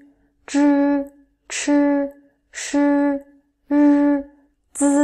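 A woman's voice reciting the Mandarin Pinyin initials one syllable at a time, five in all, about one a second, each drawn out at a level pitch after a hissing start.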